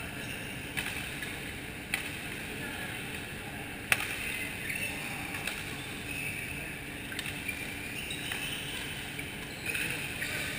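Badminton rackets striking a shuttlecock during a doubles rally: a few sharp snaps a second or two apart, the loudest about four seconds in, over the steady noise of a busy badminton hall.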